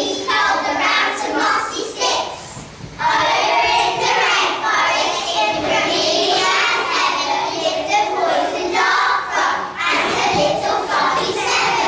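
A group of young children singing together in unison, with a brief break about two and a half seconds in.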